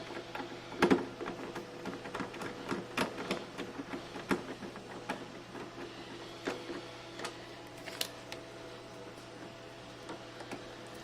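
Irregular clicks and knocks of parts being handled, loudest about a second in and thinning out in the second half, over a steady hum.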